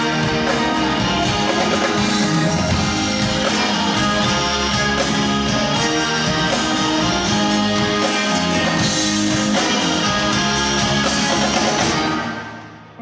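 Live band playing an instrumental passage, with guitar prominent, loud and steady until it fades out quickly about a second before the end.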